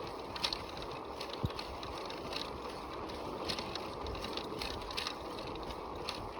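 Bicycle being ridden along a jungle track: a steady rumble of tyres and moving air, with scattered light clicks and rattles from the bike and one low thump about a second and a half in.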